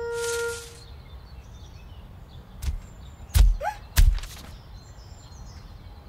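A held musical note ends in the first second. Quiet cartoon forest ambience with faint bird chirps follows, broken by three sharp, heavy thumps between about three and four seconds in, the last two the loudest.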